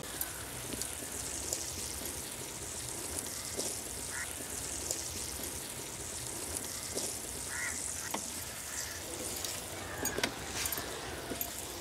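A wooden spatula stirring snail curry in a clay pot, with scattered light taps and scrapes against the pot. A few short animal calls sound in the background, the clearest about four seconds and about eight seconds in.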